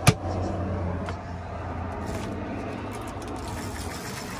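Painted wooden overhead cabinet door in a camper being pushed shut, one sharp knock as it closes right at the start, followed by a steady low hum.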